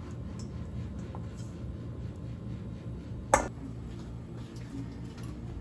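Steady low kitchen hum with one sharp clink of metal dishware about three and a half seconds in.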